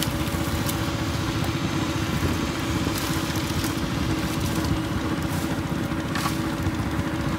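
An engine running steadily at an even idle, with a couple of faint clicks.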